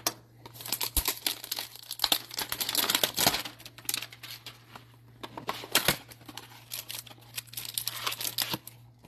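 Crinkling and tearing as a Topps baseball card hanger box is opened by hand and its cardboard flap pulled back: a dense run of crackles and sharp snaps, busiest in the first few seconds, that stops just before the end.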